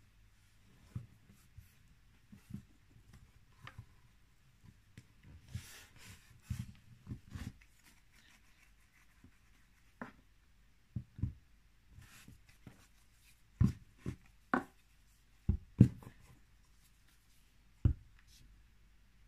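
Irregular light knocks and taps of things being handled on a tabletop, with a soft rustle a few seconds in and a cluster of louder knocks later on.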